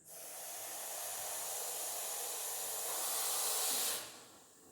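Russell's viper hissing: one long, steady hiss that starts abruptly, swells a little, and stops about four seconds in.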